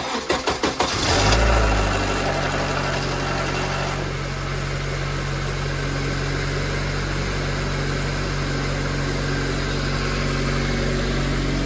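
2003 Honda CR-V's K24 2.4-litre four-cylinder engine cranked by the starter for about a second, catching with a brief flare in revs, then settling to a steady idle. It runs without the rattle it had, after the oil pump chain guide and timing chain tensioner were replaced.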